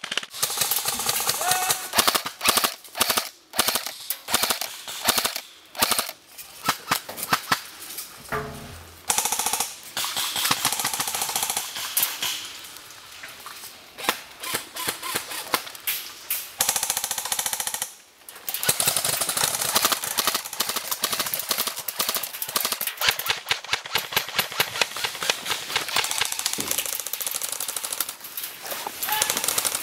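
Airsoft guns firing rapid full-auto bursts again and again, with only brief pauses between them.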